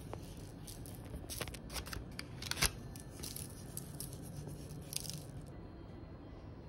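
Small kitchen handling noises: scattered light clicks and crinkling rustles, with one sharp click or tap about two and a half seconds in.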